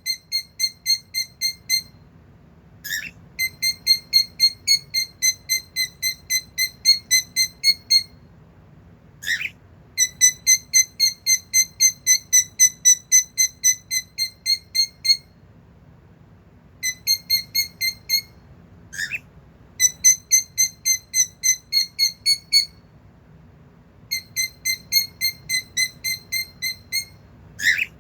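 Pet bird calling over and over: runs of short, shrill, even-pitched notes at about four a second, each run lasting a few seconds. Between runs comes a single brief swooping call.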